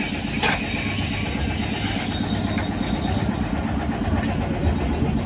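An engine running steadily at idle, a low continuous hum, with a single sharp click about half a second in.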